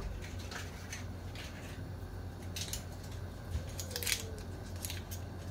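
Chicken stock cube's foil wrapper being unwrapped by hand: a handful of short crinkles and clicks spread over a few seconds, over a steady low hum.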